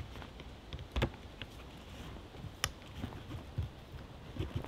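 Handling of a canvas swag tent's metal telescopic tension pole and its clamp: a knock about a second in, a sharp click a little past halfway, and a few soft thumps near the end as the pole is pressed down and levelled.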